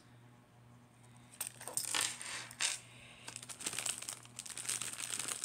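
Plastic packaging bags rustling and crinkling as they are handled, starting about a second and a half in, with a run of small clicks and rattles in the second half.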